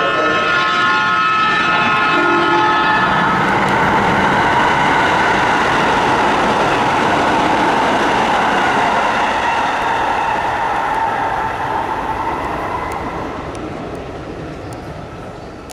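Keisei 3600-series electric train sounding its horn in repeated blasts for the first few seconds as it runs through the station without stopping. Then comes the loud running noise of the six-car train passing at speed, which fades away toward the end.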